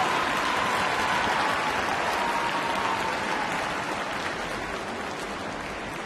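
Arena audience applauding, the clapping gradually dying down.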